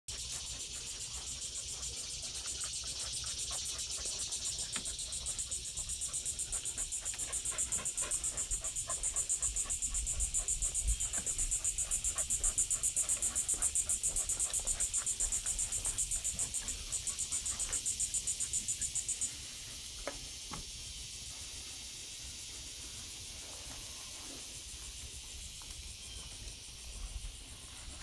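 Insects singing in a fast, evenly pulsing high-pitched chorus that grows louder and then stops suddenly about two-thirds of the way through. Scattered faint taps and a low rumble run underneath.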